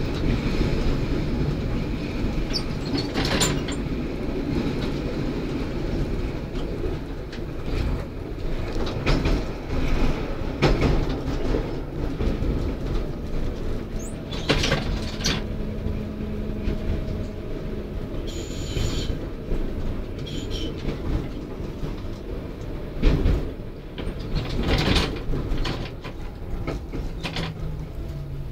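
V3A tram running along the track: a steady rumble with the wheels clacking irregularly over rail joints, and a few brief high wheel squeals about two-thirds of the way through.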